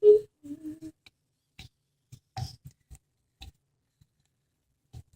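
A short hummed, grunt-like vocal sound at the start, then scattered soft taps and clicks as flour-and-water dough is worked by hand and coloured red.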